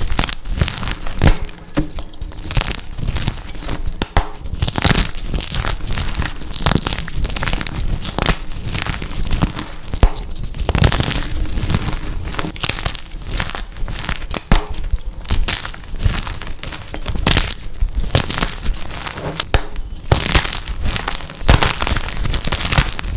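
Blocks of dyed gym chalk crushed and crumbled by hand: a steady run of crunching and crackling with many sharp cracks as the chalk breaks apart.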